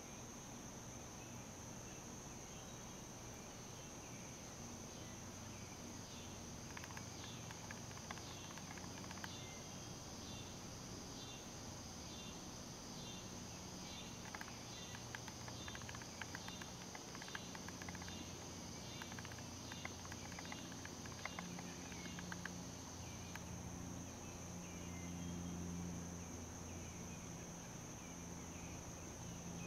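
Swamp insects trilling: a steady, high-pitched, faint chorus. Over it, a softer repeating pulsed call comes in for much of the middle, and a low hum runs underneath.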